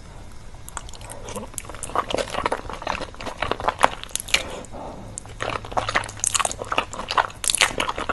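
Close-miked ASMR eating of fast food: biting and chewing, with many short, irregular crunches and mouth clicks.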